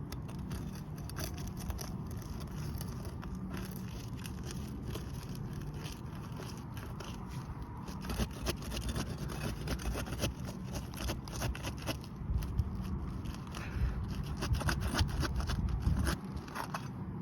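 Hand tools scraping and prying at roof shingles to work a damaged shingle loose. Irregular clicks and scrapes get busier and louder from about eight seconds in, over a steady low hum.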